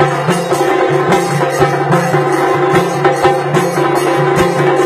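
Tassa drum ensemble playing: rapid, dense stick strokes on the tassa drums over a steady low bass drum, with metallic cymbal jingle on top.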